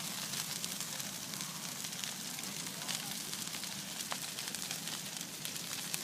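Bonfire crackling and hissing, with many small snaps and one sharper pop about four seconds in.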